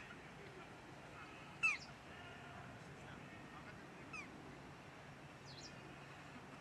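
A bird giving short, sharp calls that fall in pitch, each a fraction of a second long: one right at the start, the loudest about a second and a half in, a weaker one past the four-second mark, and a faint higher one near the end. Underneath is a low, steady background.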